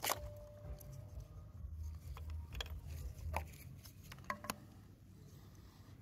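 Faint handling noise of a gloved hand pulling a rubber hose off the metal pipe of a diesel exhaust pressure sensor line. There is a sharp click right at the start with a brief ring, then a few more clicks around three and four and a half seconds in, over a low rubbing rumble that fades after about three seconds.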